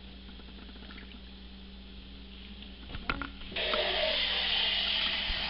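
Kitchen sink faucet turned on, tap water running steadily in a loud even hiss from about three and a half seconds in, just after a short knock.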